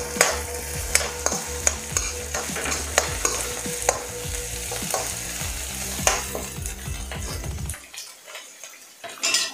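Metal spoon scraping and clicking around a kadhai as chopped onion, garlic, green chilli and ginger sizzle while they fry. The stirring and sizzle die away about eight seconds in.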